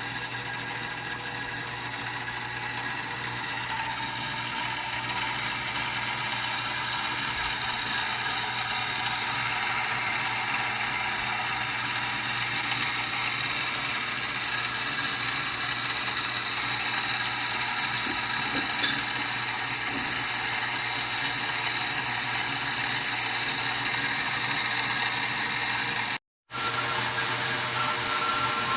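Craftex CX605 mini milling machine running: a steady whine from the spindle motor and drive with a mechanical rattle, rising slightly in level over the first few seconds. The sound drops out for a moment near the end.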